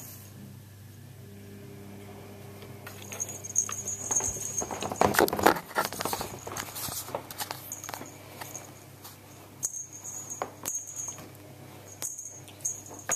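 Handling noise as the camera is picked up and moved: rubbing, scraping and knocks, loudest a few seconds in. After that come scattered light clicks and taps as a cat bats at a ribbon wand toy on wooden floorboards.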